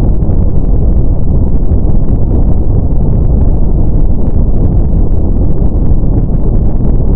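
Steady brown noise: a loud, even, deep hiss with most of its weight in the low end and little above the midrange, unchanging throughout.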